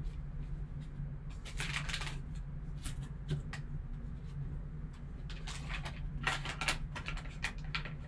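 Foil card pack and plastic sleeve crinkling and rustling in gloved hands as the pack is opened, in irregular bunches of crackles, the busiest about two seconds in and again from about five and a half seconds on, over a low steady hum.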